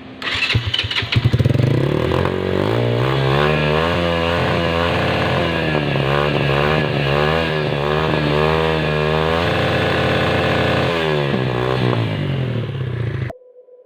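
Motorcycle engine running through a 470 mm Akrapovič exhaust with its silencer insert still fitted. The note settles after an uneven first second, wavers up and down in pitch through the middle, and cuts off suddenly near the end.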